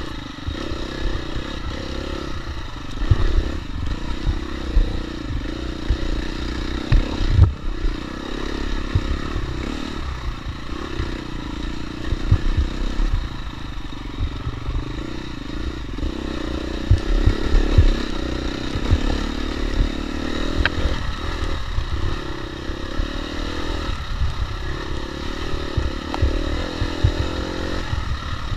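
Dirt bike engine running under constantly changing throttle on a rough trail ride. Several sharp thumps and clatter come from the bike hitting bumps, loudest about 3, 7 and 17 seconds in.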